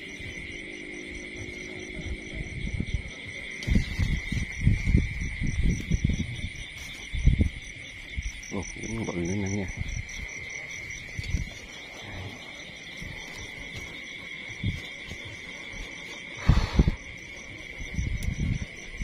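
Crickets and other field insects chirping steadily, one high continuous trill with faster pulsing chirps above it. Irregular low knocks and rustles of handling come and go, loudest a few seconds in and again about sixteen seconds in, with a brief wavering low sound about nine seconds in.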